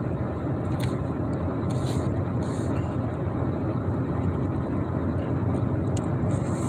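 Steady engine and road noise inside a Ford F-150 pickup's cab, cruising at highway speed.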